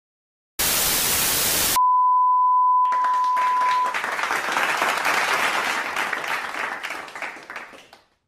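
Intro sound effects: about a second of loud static hiss, then a steady high beep for about two seconds, then a dense applause-like patter that fades away near the end.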